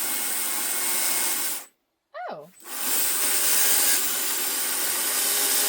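Small battery-powered electric chainsaw running as it cuts into a pumpkin. It stops about a second and a half in, then spins up again about a second later and runs steadily.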